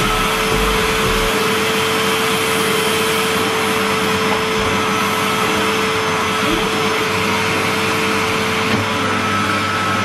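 Numatic Henry canister vacuum cleaner running steadily: a rush of air with a steady whine from the motor.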